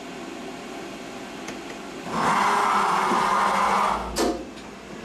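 Fadal vertical machining center's Z axis rapiding the spindle head up off the tool setter to the tool-change position. A steady machine hum gives way about two seconds in to a loud, steady whirring drive sound lasting about two seconds, then a sharp clunk near the end as the tool change begins.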